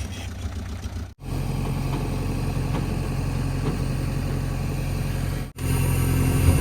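JCB 3DX backhoe loader's diesel engine running steadily at a low, even hum. The sound drops out abruptly twice, about a second in and again near the end.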